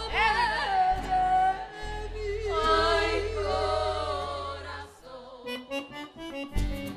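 Latin folk band music: women's voices singing long, wavering notes over accordion and sustained low bass. About five seconds in it drops to quick plucked notes, and a fuller beat with heavy bass comes in near the end.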